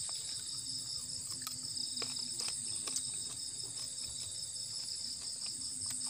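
Steady high-pitched chorus of insects, crickets trilling without a break, with a few faint clicks.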